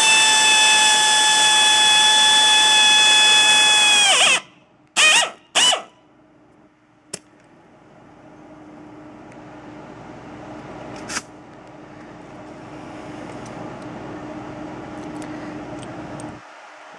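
Power drill running at full speed as it bores through the truck's sheet-metal wall: a steady high whine for about four seconds that winds down when the trigger is let go, then two short bursts of the trigger. After that, a fainter steady noise slowly builds and cuts off near the end.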